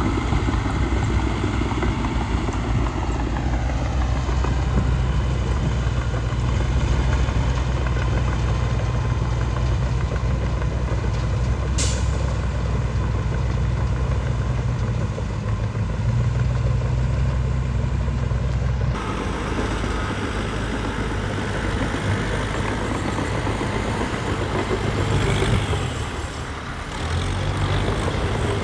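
Heavy diesel engine of earthmoving machinery running steadily under work. There is a brief sharp click near the middle, and the engine sound changes suddenly about two-thirds of the way in.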